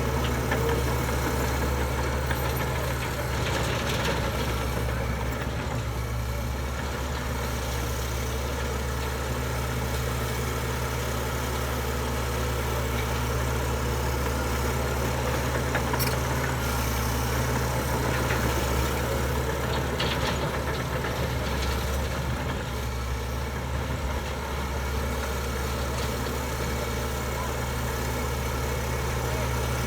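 Komatsu D61EX bulldozer's diesel engine running with a steady, even drone, with a few faint clanks around the middle.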